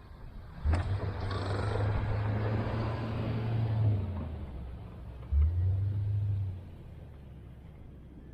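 Plow truck running, with two low steady hums that each start abruptly with a click: the first lasts about three seconds, the second about a second, then it settles to a quieter running sound.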